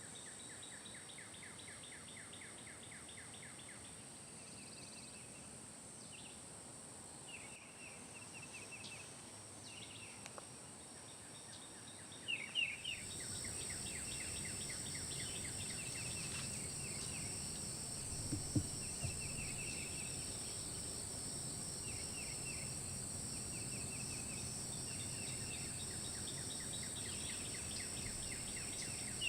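Insects droning steadily at a high pitch, with songbirds chirping and trilling in short repeated phrases. About thirteen seconds in, the background noise gets louder.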